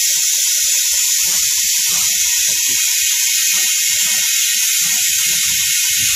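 Compressed air hissing steadily out of an LCD bubble remover's pressure chamber as it vents its pressure at the end of a cycle.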